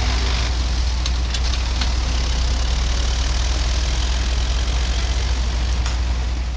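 Diesel engine of a harvest machine running steadily with a strong low hum, and a few faint clicks about one to two seconds in.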